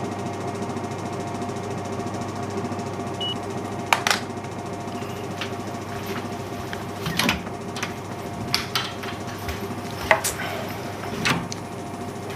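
A steady hum of several held tones, with a handful of sharp clicks and knocks scattered over it.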